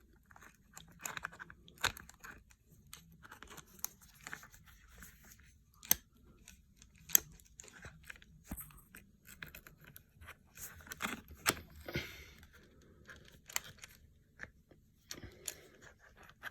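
Irregular clicks, taps and light scrapes of hands working camera mounting gear: a camera and its grip being fitted back onto a ball head's quick-release clamp, with a few sharper knocks among them.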